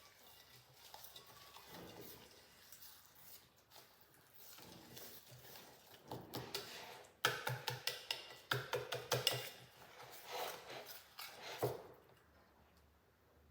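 Cake batter being stirred in a mixing bowl, the utensil scraping and clinking against the bowl. The strokes get quicker and louder about halfway through, then stop near the end.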